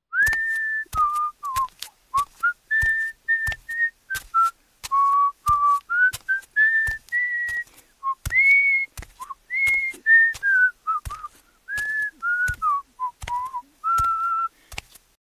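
A whistled tune, one clear note at a time, stepping and sliding from note to note with short breaks, and a sharp click at the start of most notes.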